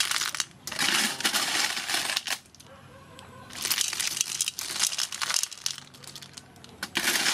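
Snail shells clattering and rattling as scoops of them are tipped from a wire skimmer onto a heaped plate: dense bursts of many small clicks, about a second in, again around four seconds in, and near the end.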